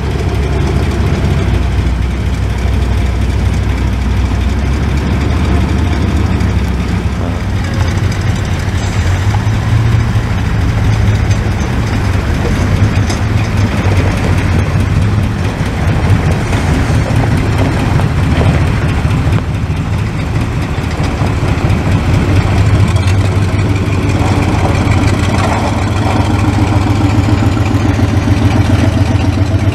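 Off-road vehicle engines running at low revs, a steady low rumble. Over the last few seconds a heavy ex-army truck's engine comes closer, its quick, even beat growing louder.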